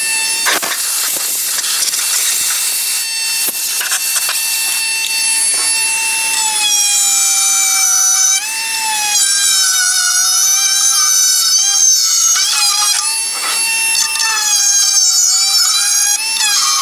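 Cordless Dremel rotary tool running at high speed with a high-pitched whine, grinding hardened sealant out of a deep groove. About six seconds in the pitch starts to sag and waver again and again as the bit is pressed into the work.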